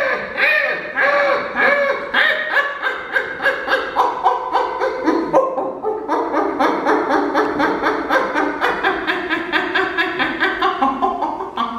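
Improvised wordless vocal sound poetry: rapid, stuttering pulses of pitched voice, several a second, bending up and down in pitch. About halfway through, a lower wavering vocal tone joins under the pulses.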